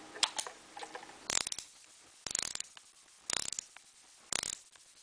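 Stanley STHT68010-8 ratcheting screwdriver's ratchet mechanism clicking as the shaft is turned back and forth: four short runs of rapid clicks about a second apart, after a few light handling clicks at the start.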